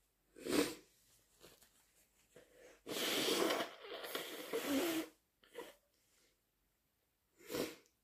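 A person sneezing in wet, induced sneezes. The loudest is a long noisy burst about three seconds in that lasts about two seconds. Shorter breathy nasal bursts come near the start and near the end.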